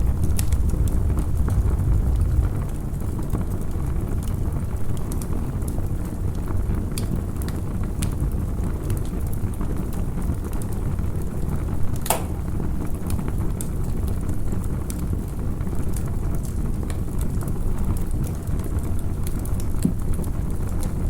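Campfire crackling: scattered small pops and snaps over a steady low rumble, with one louder pop about halfway through.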